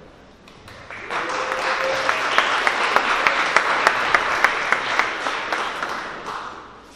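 Audience applauding, building up about a second in and dying away near the end, with one person's sharp claps close by at about three a second standing out.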